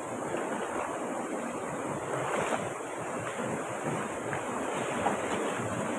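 A mountain stream pouring over boulders into a clear pool: a steady rush of running water.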